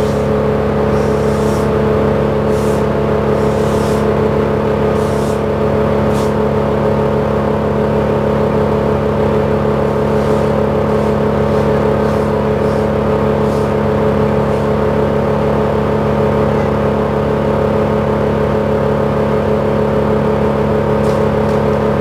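Truck-mounted crane's engine running steadily at a constant raised speed while it lifts a section of pine trunk. A few faint ticks sound over it.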